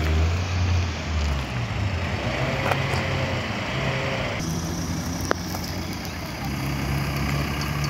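Car engine running at low revs as a Honda saloon rolls slowly past close by, with more engines idling around it. A single sharp click a little over five seconds in.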